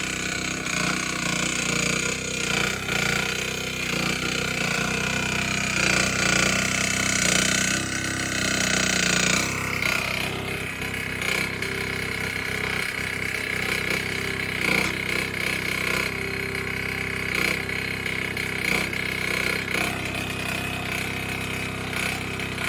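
HIGHTOP PC08 mini excavator running steadily while its bucket digs into the soil. A high whine sits over the engine and grows louder for a few seconds about a third of the way through.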